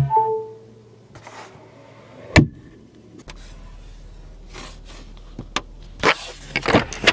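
Audi A6L cabin electrics: a short two-tone electronic chime falling in pitch at the start, a sharp click about two seconds in, then a steady low electric hum from about three seconds in, with a few more clicks near the end.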